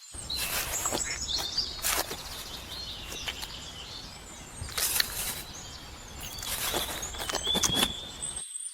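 Birds chirping over a steady outdoor background hiss, with scattered sharp clicks or taps.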